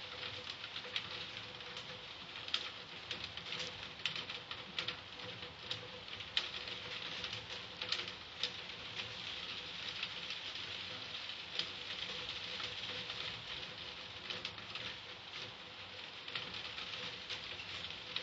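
Rain from a passing typhoon pattering on surfaces: a steady hiss with many separate drops ticking irregularly, over a faint steady hum.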